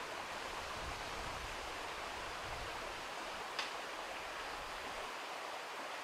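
Steady rushing of a stream, an even hiss with no let-up, with one brief sharp click a little past halfway.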